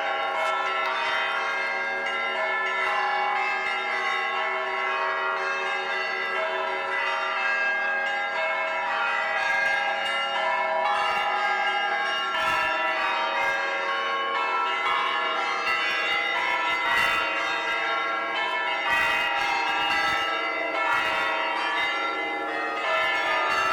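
Orthodox cathedral bells ringing: many bells of different pitches struck together in a continuous peal, fresh strikes landing over the ringing of the others.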